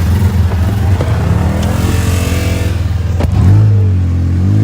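Polaris RZR side-by-side's engine running hard, the revs climbing as it accelerates and then climbing again near the end, with one sharp click a little after three seconds in.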